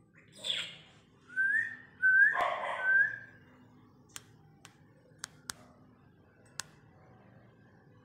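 Indian ringneck parakeets calling: three short upslurred whistled notes between two harsh squawks, followed by a few sharp isolated clicks.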